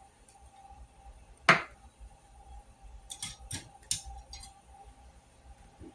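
Metal tools clinking against bolts: one sharp clink about a second and a half in, then a handful of lighter clicks and taps a couple of seconds later, while sockets are tried on the bolts to find their size.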